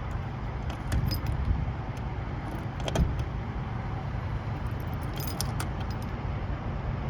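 Diesel generator engine running steadily with a low rumble, with scattered light metallic clicks and jingles.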